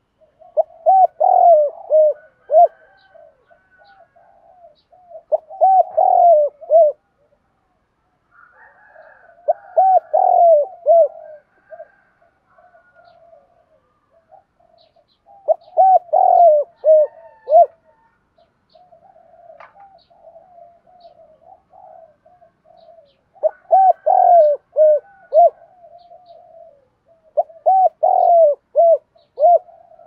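Spotted dove cooing: six loud phrases of several short, falling coos, repeated every few seconds, with softer cooing in between.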